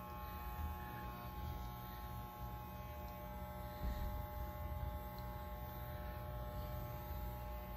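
Corded electric hair clippers running with a steady buzz, trimming hair at the back of the neck.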